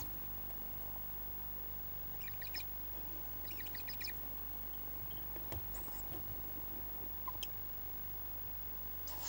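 Tawny owls calling in the nest box during a feeding: two short bursts of rapid, high twittering calls about two and three and a half seconds in, a brief high call later, and a couple of sharp clicks, over a steady low hum.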